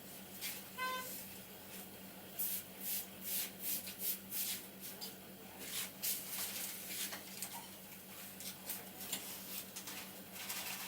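Hands tapping and rubbing over the scalp and hair in an Indian head massage: a run of short, crisp taps and rubs, quickest from about two to four seconds in, over a steady low hum.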